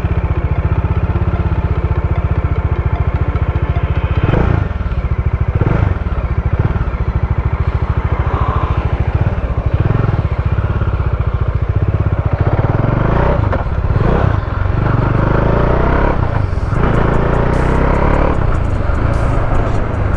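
Bajaj Dominar 400 motorcycle's single-cylinder engine running, a steady, loud exhaust note.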